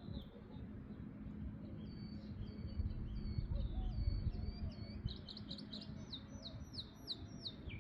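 A songbird singing a series of short, high, falling notes that come faster and louder about five seconds in, over a low rumble of wind noise.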